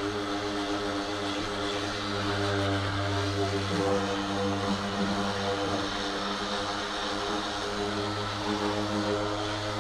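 DeWalt corded random orbital sander running steadily while sanding wooden bed slats: a level motor hum over the hiss of the pad on the wood.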